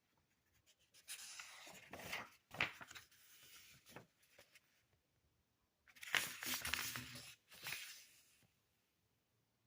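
Paper rustling in two bouts as pages of a printed instruction manual are handled and turned, with a few sharp crackles.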